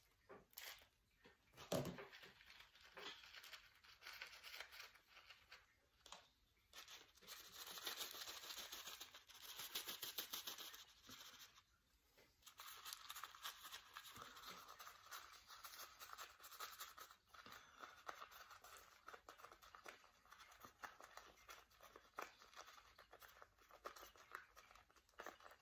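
Faint rustling of a PVA bag being handled, with small clicks and patter of fishing pellets dropped into it. There is a louder stretch of rustling about eight to eleven seconds in.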